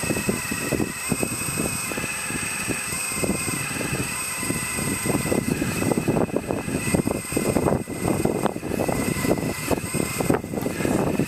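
Hydraulic pump of an RC4WD Earth Digger 4200XL model excavator whining steadily, its pitch stepping slightly as the arm and bucket work under the load of two water-filled jugs. Irregular crackling and knocking runs underneath and grows denser about halfway through.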